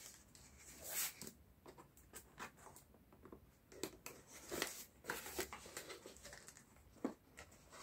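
Small cardboard box handled and its flaps pried open by hand, giving faint, scattered rustles and taps, a few louder ones about a second in and around the middle.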